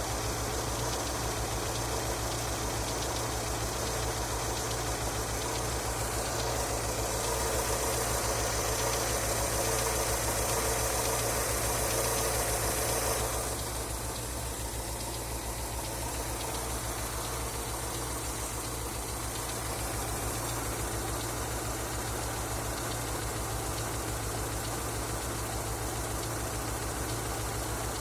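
Engine idling with a knock, which appeared after an oil change. It runs steadily, louder for a stretch in the middle and then dropping back abruptly.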